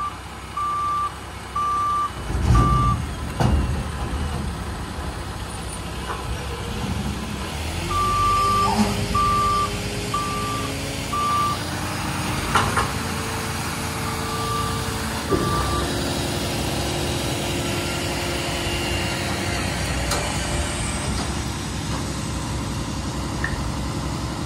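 Front-load garbage truck working at a dumpster: its backup alarm beeps in three runs while the engine runs and revs with a rising whine. Heavy metal clanks come about two and a half seconds in, again a second later, and twice more mid-way, with a short hiss of air late on.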